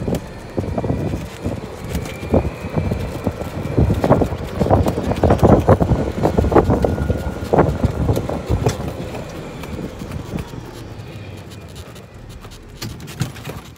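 Ride in a moving golf cart: wind buffeting and rushing past, with the cart's loose clear plastic side curtains flapping and rattling in irregular knocks. A faint high whine comes and goes, and the noise eases off in the last few seconds.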